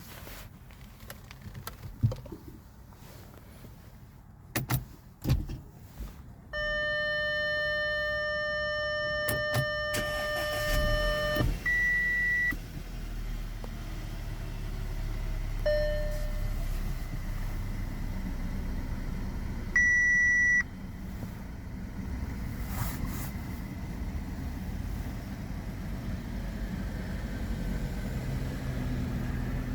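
Audi A4 B8 being started: a few knocks, then a steady chime for about five seconds, then the engine starts and runs steadily while the dashboard gives three short beeps.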